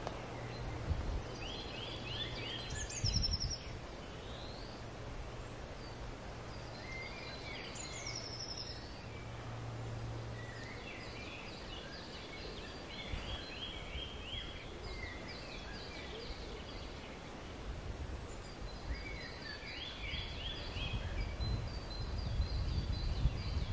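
Small songbirds singing in woodland, repeated runs of quick high chirping notes. A steady low hum runs under the first half and stops about halfway through, and low rumbles build near the end.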